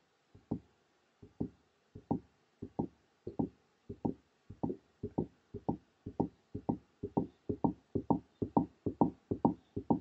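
Foley heartbeat sound effect made with a household object: dull double thumps, lub-dub. The beat speeds up steadily and grows louder, from slow beats to about three a second near the end, for a racing heart.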